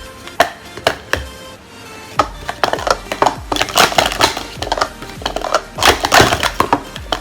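Plastic speed-stacking cups, a Hyeon Jong Choi Pro Series 2 set, clattering as they are stacked up and down: a few separate clacks in the first second or so, then fast runs of rapid clicks.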